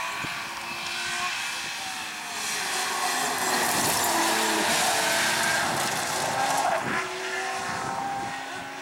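BMW E30 rally car engine at full throttle, revving up through the gears. As it passes close by there is a loud rush of tyre and gravel noise, and the sound fades as the car pulls away near the end.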